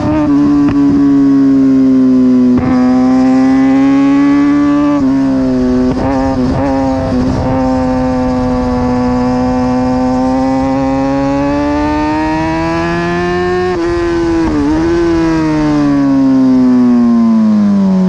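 A 2009 Kawasaki ZX6R's 600 cc inline-four engine at high race revs, heard from a camera on the bike. Its pitch breaks briefly a few times as gears change, and it falls steadily near the end as the bike slows.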